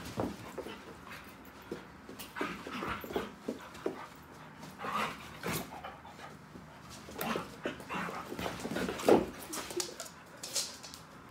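Two Weimaraners play-wrestling, making irregular short whines, huffs and scuffling noises, with the loudest sound about nine seconds in.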